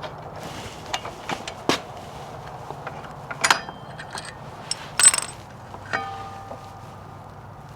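Metal hand tools and motorcycle parts clinking and knocking in scattered single strikes, the loudest about five seconds in. About six seconds in, a struck metal piece rings briefly.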